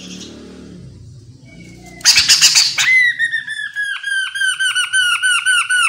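Chestnut-capped laughingthrush calling: a harsh scratchy burst of notes about two seconds in, then a fast, rhythmic run of repeated down-slurred whistles, about five a second.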